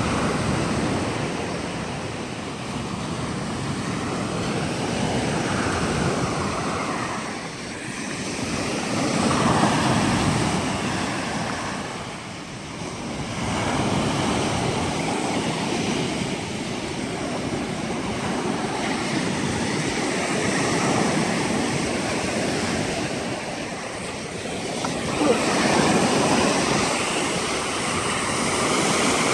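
Rough Lake Superior surf breaking on a rocky shore, a continuous wash of waves that swells and eases every few seconds, loudest about a third of the way in and again near the end.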